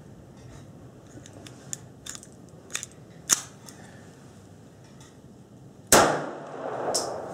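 A few sharp metallic clicks of a P-64 pistol being handled, then a single loud shot from the 9×18 mm Makarov pistol about six seconds in, its report trailing off.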